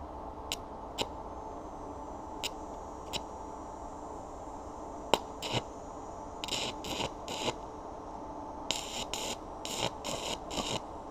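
Electric arc welding with an Amico welder on a metal trike frame. A few single sharp cracks as the arc is struck come first, then runs of short crackling bursts of arc, each well under a second long, in two groups in the second half.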